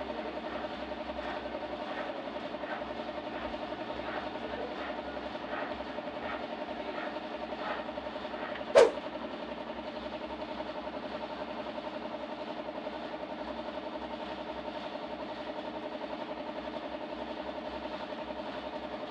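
Steady mechanical hum, like a motor or engine running, with a single sharp click about nine seconds in.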